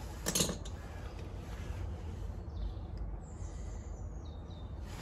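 A brief clatter just after the start, then a single bird call gliding down in pitch about three seconds in, over a steady low rumble.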